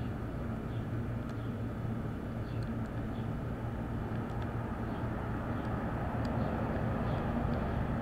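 Steady low hum and rumble of background machinery, with a few faint light metal ticks from a hook pick and tension wrench working the pins of a Master Lock Lockout padlock.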